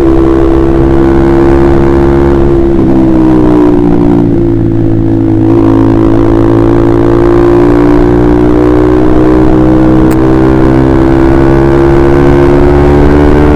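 Honda CBR150R's single-cylinder engine, fitted with a KJ Pro Performance aftermarket exhaust, running under way at steady revs. The pitch drops a little about three seconds in, then holds and rises slowly again near the end.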